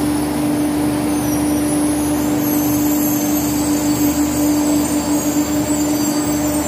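Diesel passenger train at the platform: a steady, even hum of constant pitch over a low rumble, with faint high squeals above it.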